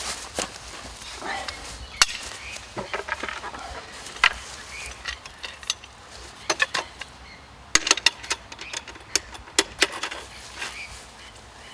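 Stainless steel legs, rails and latches of a camp table frame clicking and knocking as they are handled and fitted together: irregular single sharp clacks, with a quick run of them about eight seconds in.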